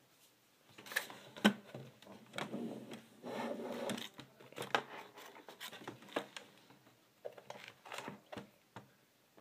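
Small hard-plastic Shopkins basket and toy being handled: a string of irregular clicks, taps and scrapes, with a longer rustling scrape about three and a half seconds in.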